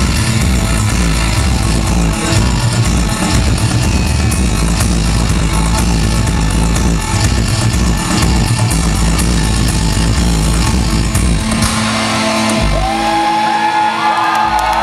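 Loud live industrial music from a band with a heavy bass beat. About eleven seconds in, the beat and bass drop out, leaving sustained and gliding higher tones.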